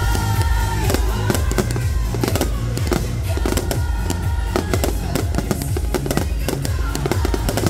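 Aerial fireworks shells bursting in rapid succession, a dense run of bangs and crackles. Music plays underneath with a steady bass.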